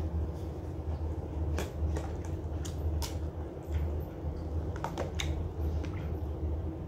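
A clear plastic food tub being handled, giving a series of light plastic clicks and taps, most of them in the middle few seconds. A steady low hum runs underneath.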